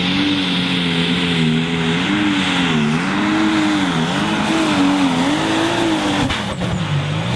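Pro Stock pulling tractor's diesel engine running hard under the load of the pulling sled, its note wavering up and down as the tyres dig in and the front wheels lift. About six seconds in the engine note falls to a lower, steadier pitch.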